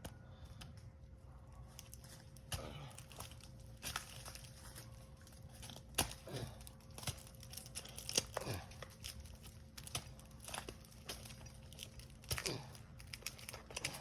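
Irregular scraping, crackling and sharp knocks from climbing spurs and gear working against pine bark, with a faint steady hum underneath.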